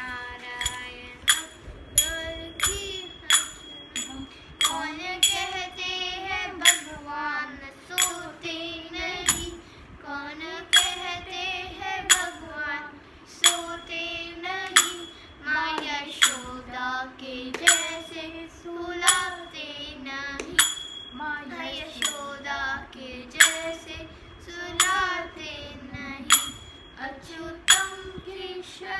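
A young girl singing a Hindi devotional bhajan, keeping time on manjira, a pair of small brass hand cymbals. The cymbals clash about once or twice a second, and each strike rings on over the voice.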